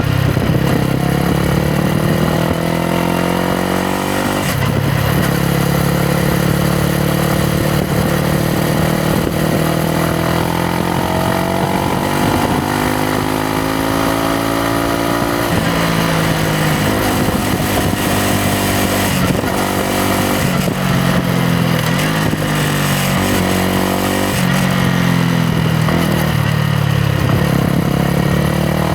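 Yamaha MT-125's single-cylinder four-stroke engine and exhaust under way. The note climbs with the revs, drops sharply at gear changes, steps down as the bike slows and climbs again near the end, with wind noise throughout.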